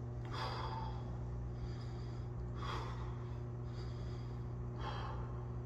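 A man breathing hard through a held push-up plank, winded at the end of a long push-up set: a heavy exhale about every two seconds, three in all, with softer inhales between, over a steady low hum.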